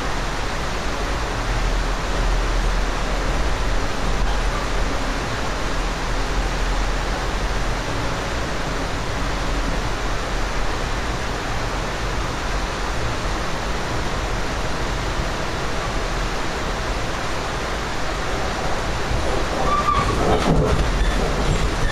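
Steady rushing and low rumble of the Amtrak Empire Builder running at speed, heard from inside a passenger car. A short, louder sound with a few brief tones comes in about twenty seconds in.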